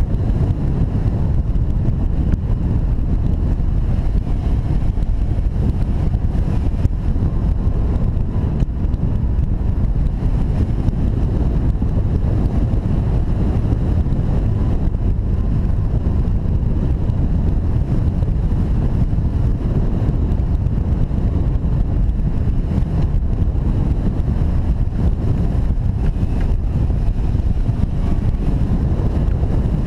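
Steady, loud wind noise from airflow rushing over the microphone of a wing-mounted camera on a hang glider in flight, heaviest in the low end.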